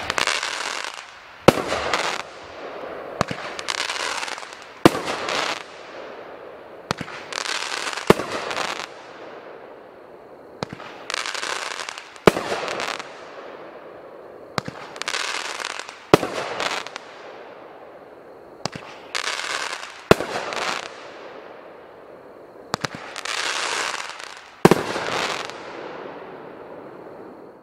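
A 500-gram consumer firework cake fires a long string of shots, one every one and a half to two seconds. Each is a sharp report followed by a crackling burst about a second long that fades out.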